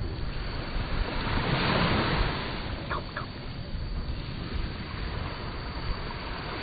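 Sea surf washing in, a steady rush that swells about two seconds in, with wind buffeting the microphone. Two brief squeaks come just after three seconds.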